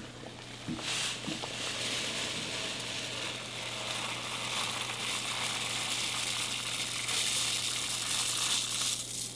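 Dry long-grain brown rice poured in a steady stream into a pot of boiling water, a continuous hissing rush of grains hitting the water. It starts about a second in, after a couple of light clinks as the glass pot lid comes off, and stops abruptly near the end.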